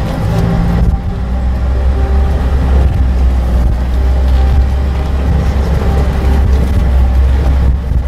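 Vehicle driving: a steady low engine and road rumble.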